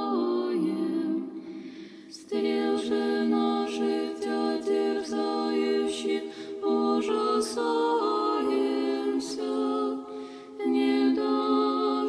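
A small group of women singing Orthodox church chant a cappella, in held notes that move slowly in pitch, with short pauses for breath about two seconds in and again about ten seconds in.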